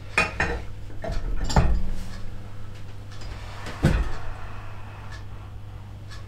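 Metal clinks and knocks as the cylinder barrels and pistons of a Fiat 500 engine are handled on the block's studs. There are a few sharp knocks near the start, the loudest about a second and a half in, and another just before four seconds, over a steady low hum.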